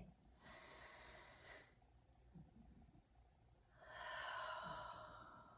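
A woman's slow, deliberate meditation breathing: a soft breath about half a second in, then a longer, louder, sighing breath out from about four seconds in.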